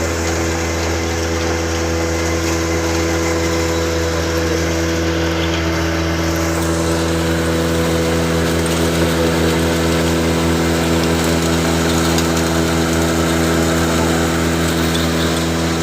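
Pulveriser grinder running steadily, a constant machine hum with a strong low drone.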